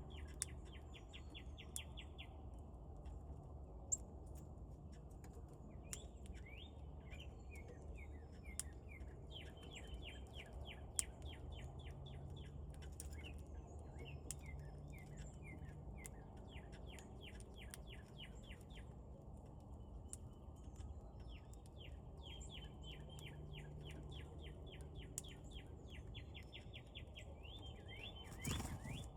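A songbird singing a rapid, even trill of about ten notes a second, repeated in bouts of two to three seconds, over a steady low background rumble. A few sharp clicks are heard, and a louder brief rustle comes near the end.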